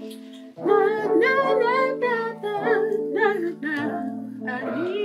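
Male voice singing a wordless, wavering background harmony over a backing track of sustained chords, in phrases with short breaths between them.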